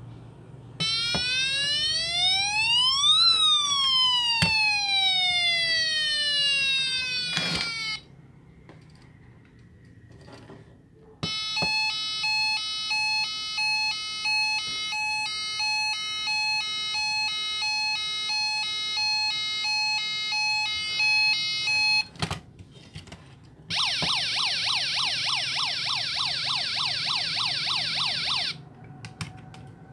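Electronic siren sounds from a die-cast toy police pickup truck, played three times: first a wail that rises and then falls for about seven seconds. Next comes about ten seconds of a stepped, repeating electronic siren pattern, then about five seconds of a fast warbling yelp, with short clicks between them.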